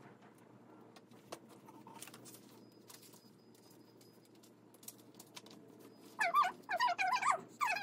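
Faint scattered taps and clicks, then about six seconds in an animal, a household pet, starts a quick run of short calls.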